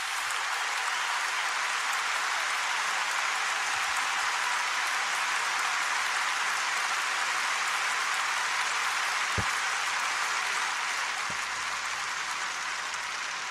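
A congregation applauding, a long, steady ovation.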